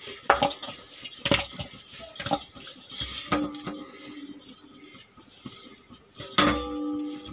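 Kneaded pizza dough being turned and rounded by hand in a metal bowl: light knocks and clinks against the bowl about a second apart. Near the end comes a louder knock that leaves the bowl ringing for about a second.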